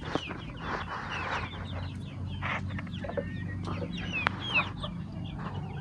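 Chickens clucking, with chicks peeping in many short, high, falling calls.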